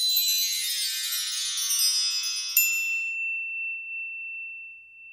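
Sparkling chime sound effect of a closing logo sting: a shimmering cascade of high, bell-like tones, then a bright ding about two and a half seconds in whose single tone rings on and slowly fades away.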